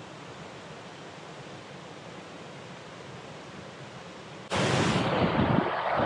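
Steady rushing of the Asama Otaki waterfall and its stream. About four and a half seconds in, it abruptly becomes much louder, with low rumbling gusts in the noise.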